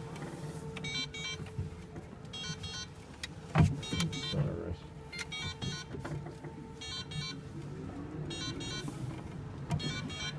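Cabin sound of a small electric car maneuvering slowly: a steady motor hum with a repeating electronic beeping pattern about once a second. A sharp knock comes about a third of the way in.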